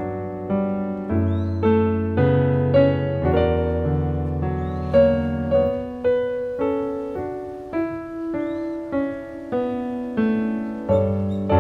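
Background music: a slow, gentle piano melody with a new note struck about every half second, each note fading before the next.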